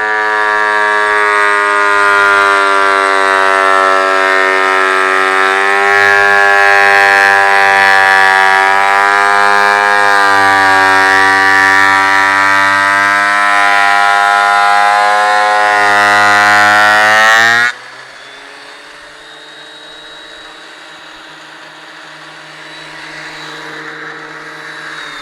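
Ridgid thickness planer planing a live edge plank, a loud whining run whose pitch wavers as the cut load changes. About 17 seconds in it drops abruptly to a much quieter steady hum.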